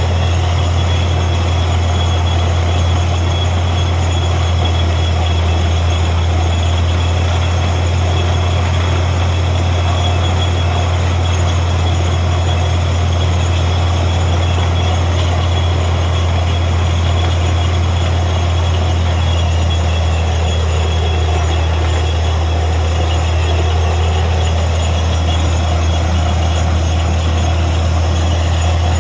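Truck-mounted borewell drilling rig running while it drills: a loud, steady machine drone with a strong low hum that holds even throughout, as muddy water flushes up out of the bore.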